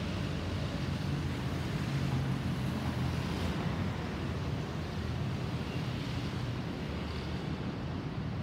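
Distant jet engine noise from an Airbus A320-216 with CFM56 engines, climbing out after takeoff as it passes overhead: a steady low rumble that swells slightly about two to three seconds in and eases a little toward the end.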